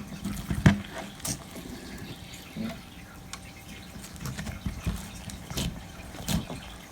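Elmer's slime being squished and stretched by hand, with irregular wet clicks and small pops of trapped air bubbles.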